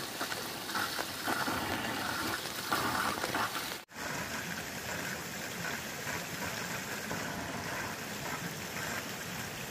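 Steady rushing water noise, breaking off for an instant about four seconds in.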